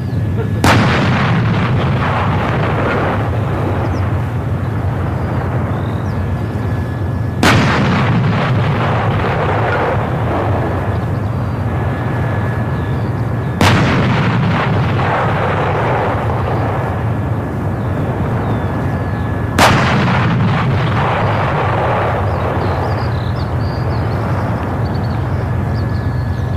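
A PzH 2000 155 mm self-propelled howitzer fires four rounds about six seconds apart. Each shot is a sharp blast followed by a long, rolling echo, over a steady low rumble.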